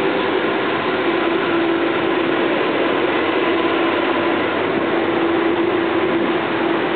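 Steady engine drone with a constant low hum, unchanging throughout.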